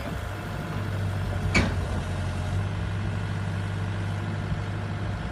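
Bobcat E45 mini excavator's diesel engine idling steadily, with one sharp metallic clank about a second and a half in.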